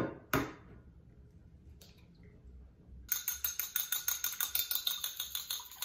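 An egg cracked with one sharp tap against the rim of a ceramic bowl. About three seconds in, chopsticks start beating the egg in the bowl: rapid, steady clinking against the ceramic, several strikes a second.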